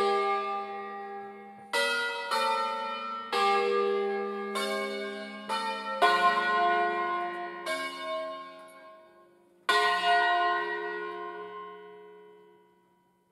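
A peal of five bronze church bells hung on wheels, cast in 1957 by Angelo Ottolina of Bergamo and tuned to F3 slightly sharp, rung in a tune. About nine single strokes of differing pitch come at uneven spacing, each ringing on and dying away. After a longer pause, one last stroke about ten seconds in rings out and fades near the end.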